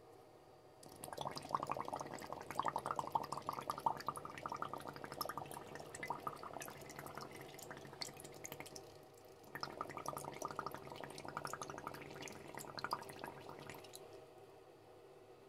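Air from an Atomstack X20 laser engraver's air-assist hose bubbling and gurgling up through a tub of water, starting about a second in. It breaks off briefly around the middle, then resumes until shortly before the end.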